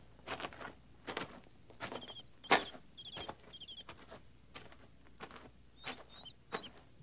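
Radio-drama sound effects of footsteps walking, a step every half second or so at an uneven pace, with a small bird chirping a few short, high notes about two to three and a half seconds in.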